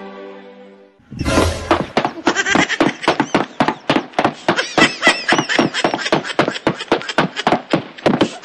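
Loud, rapid laughter: a long unbroken run of high, whinnying 'ha-ha' pulses, about four or five a second, starting about a second in.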